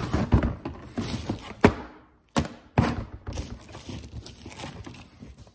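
Parts being rummaged through in a box: a clatter of irregular knocks and thunks, the sharpest about one and a half seconds in and two more near the three-second mark.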